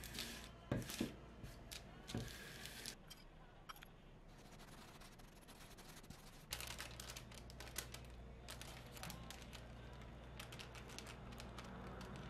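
Faint scattered taps, scrapes and rustles of hand work on parchment paper. A wooden rolling pin is pressed over the dough, then a metal spoon spreads cinnamon sweetener over the dough strip, and plastic sheeting crinkles near the end.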